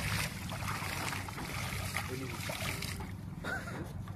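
Water splashing and sloshing in shallow water, busiest in the first three seconds and easing off after, over a steady low rumble.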